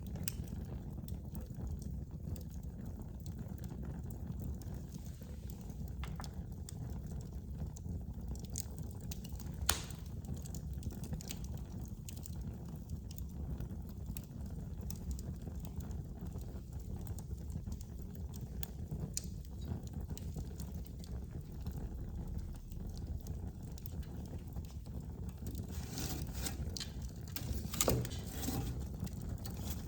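Wood fire in a fireplace burning with a low steady rumble and scattered crackles and pops, one louder pop about ten seconds in and a burst of crackling near the end.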